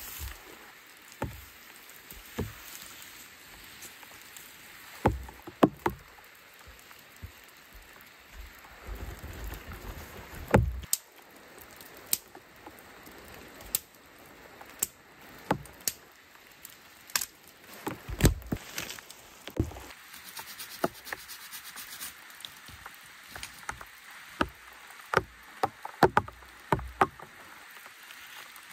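Irregular sharp knocks, cracks and rustles of a long dead wooden branch being dragged and handled over the forest floor, along with footsteps. A longer scraping rustle comes about nine to eleven seconds in, and a quick run of knocks near the end.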